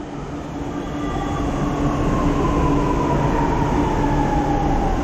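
Chennai Metro electric train running on the track with a steady rumble, its motor whine gliding slowly down in pitch.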